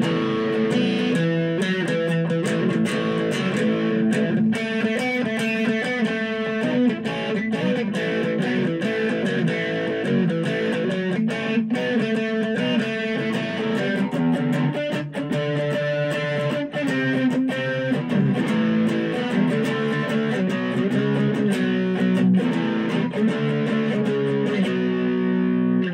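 Epiphone Les Paul SL electric guitar with both ceramic single-coil pickups on, played through an overdriven amp: chords and picked riffs with sustained, grainy notes.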